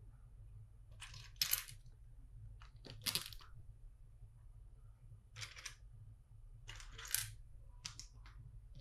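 Plastic LEGO bricks clicking and rattling as pieces are handled and pressed together, in about five short bursts.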